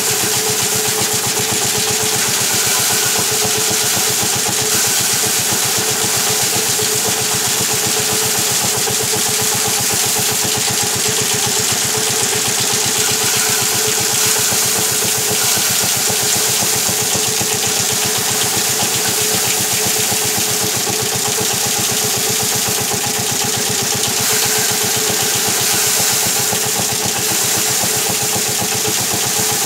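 A motor-driven wire-loop drum paddy thresher running at a steady speed. Bundles of rice stalks are held against the spinning drum as the grain is stripped off, giving a constant mechanical whir with a dense, rapid rattle.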